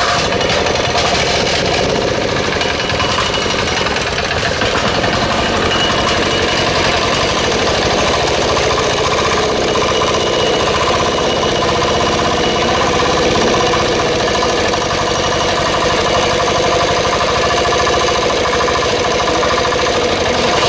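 Small single-cylinder air-cooled diesel engine, new, running steadily with a fast, even beat that holds unchanged throughout.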